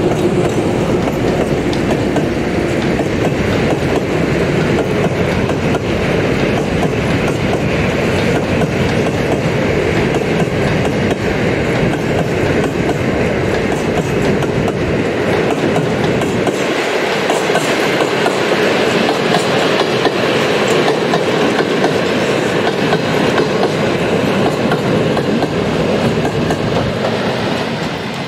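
A long train of empty cement hopper wagons rolling past close by, wheels clattering over the rail joints. The SM42 diesel shunting locomotive's engine is heard briefly at the start as it moves away. The deep rumble thins out a little past halfway.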